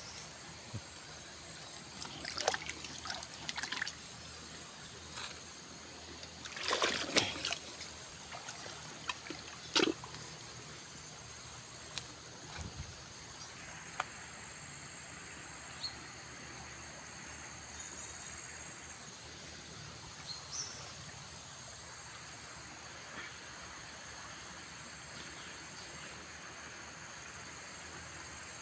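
Muddy river floodwater trickling and lapping around tree trunks at the bank, with bursts of splashing in the first several seconds, the loudest about seven seconds in.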